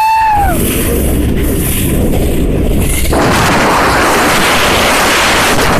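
Wind buffeting and the rush of water and spray on a fast-moving speedboat. It opens with a brief high-pitched cry and grows louder and hissier about three seconds in.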